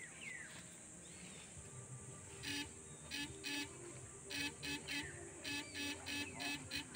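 Backpack electrofishing shocker buzzing in short, identical bursts, about a dozen of them coming two or three a second from about two and a half seconds in, as current is switched into the water at the creek bank. A bird gives a short falling whistle near the start and again midway.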